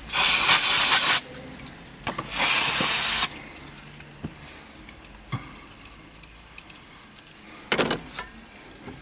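Aerosol brake-cleaner spray can hissing in two bursts of about a second each, the second starting about two seconds in, sprayed to clean off leftover grime. A brief rustle follows near the end.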